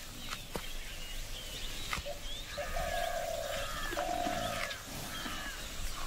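Jungle birds calling: scattered short chirps and whistles, with two longer held calls about three and four seconds in.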